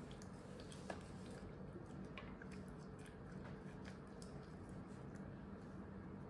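Faint, scattered wet clicks and smacks of a baby's mouth working a spoonful of soft food, over a low steady room hum.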